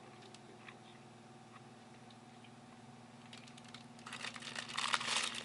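Meitetsu μSky (2000 series) train heard from inside the car while running: a steady hum with faint clicks. About three seconds in, a rising clattering rush of noise builds and is loudest near the end.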